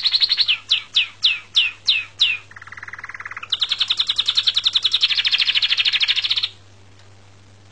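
Domestic canary singing: a fast high trill, then six quick falling notes, a lower trill, and another long fast high trill that stops about six and a half seconds in.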